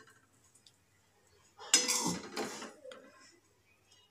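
A spoon scraping and clinking against a plate as it scoops up dry-cooked cluster beans: one scrape about two seconds in, lasting about a second, with only faint handling sounds around it.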